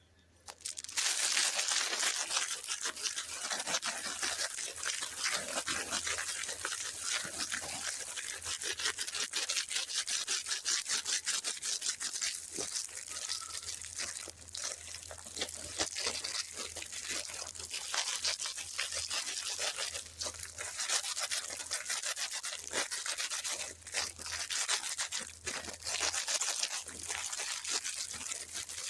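Packaging crinkling and rustling as it is handled and opened, a dense crackle of small clicks that starts abruptly about a second in.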